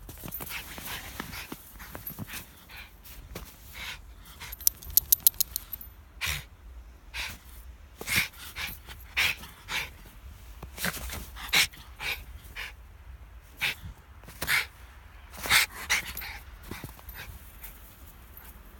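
A Schipperke panting as it plays in snow, with boots crunching through the snow, often about once a second. About five seconds in comes a quick run of sharp clicks, the loudest thing here.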